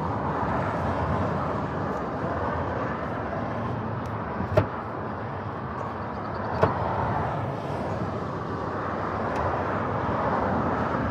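Steady traffic noise from passing road vehicles, with two sharp clicks, the first a little under halfway through and the second about two seconds later.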